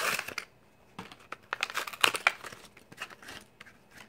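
Plastic blister and cardboard card of a Hot Wheels package crinkling and tearing as it is pulled open by hand, with a loud rip at the start and then bursts of crackling.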